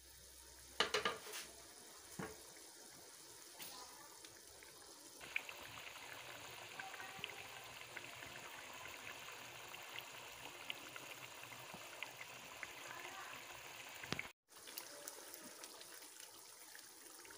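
Blended tomato masala frying and bubbling in oil in a wok, a soft sizzle with fine spattering crackles that gets louder about five seconds in. A few sharp clicks in the first few seconds, from the wooden spatula against the pan.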